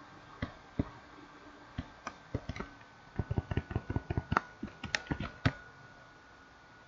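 Computer keyboard keystrokes: a few separate key presses, then a quick run of typing from about three seconds in that stops about two and a half seconds later. A faint steady hum lies underneath.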